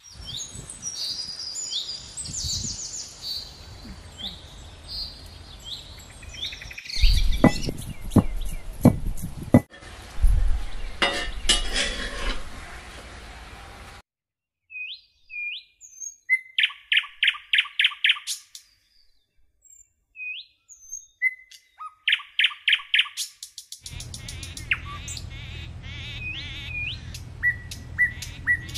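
Wild birds chirping and calling, with short sliding chirps and quick runs of repeated notes. Several dull thumps sound in the first half, and for a stretch in the middle the bird calls stand alone with no background noise.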